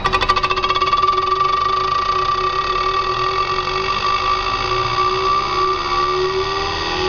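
Homemade Bedini pulse motor starting up: its pulsed coils click rapidly as the magnet rotor on a hard-drive bearing starts turning. Within about half a second the clicks speed up and merge into a steady electric whine, which rises slightly in pitch near the end as the rotor gains speed.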